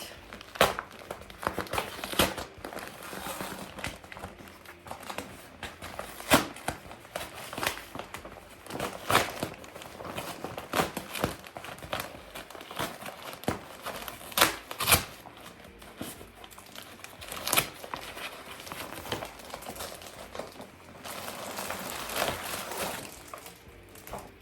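Crinkling and rustling with scattered sharp clicks as a backpack is handled and worked open.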